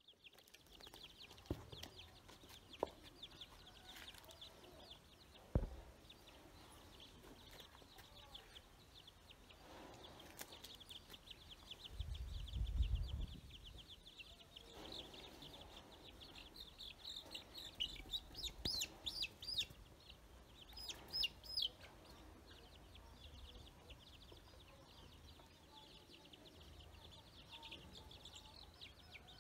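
A flock of ducklings peeping continuously in a dense chorus of short, high peeps. A sharp knock comes about five seconds in, and a low rumble around twelve seconds in.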